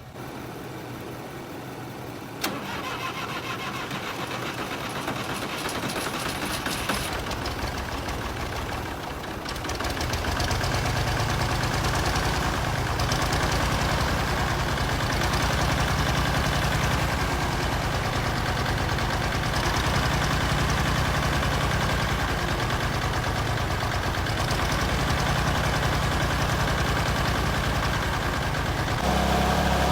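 Massey Ferguson 308 loader tractor's diesel engine cranking on the starter, its injector lines cracked open to bleed air out of the fuel system. About ten seconds in it catches and keeps running, louder and steady.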